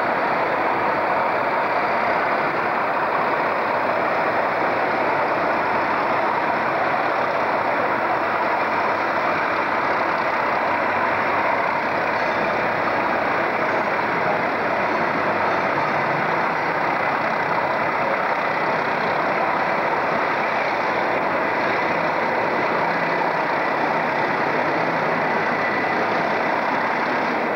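Steady drone of diesel locomotive engines idling, unchanging throughout, with a faint high tone near the end.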